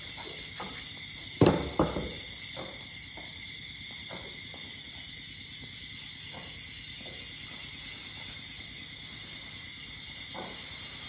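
Crickets chirring steadily at night in two high, even bands, with soft scattered knocks and rustles of elephants feeding on grass. About a second and a half in, a loud, low, short sound comes twice in quick succession.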